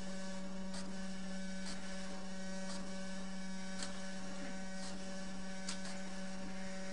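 Fax-printer running while it prints: a steady hum with faint ticks about once a second.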